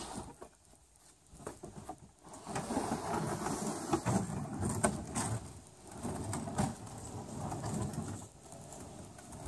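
Plastic kayak hull rolling up a wooden 2x4 ramp over PVC-sleeved conduit rollers, starting about two seconds in: a rough rumble and scrape with a few sharp knocks as the hull crosses the rollers.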